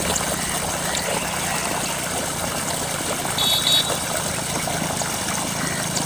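A steady low engine hum under a constant hiss, with a brief high chirp about three and a half seconds in.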